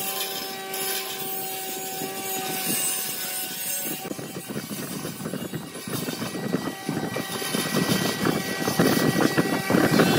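Bandsaw running, its blade cutting notches into a wooden ring. The motor hums steadily at first, and about four seconds in the rasp of the blade through the wood sets in and grows louder toward the end.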